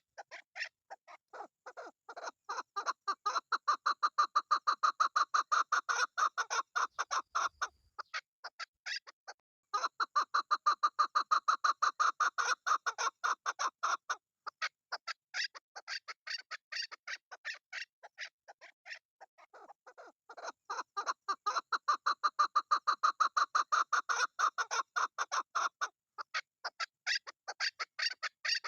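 Chukar partridge calling: long runs of rapid repeated clucking notes that swell in loudness and fade away, in three bouts with a brief pause between the first two.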